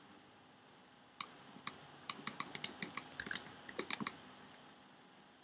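Computer keyboard typing: an irregular run of light keystroke clicks lasting about three seconds, starting a second in, with one more click at the end.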